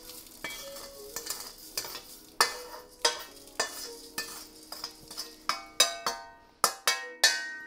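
A metal utensil scraping and knocking in a wok, about twice a second, scooping out dry-fried rice and whole spices; the wok rings briefly after each stroke, and the dry rice rattles and hisses as it is moved.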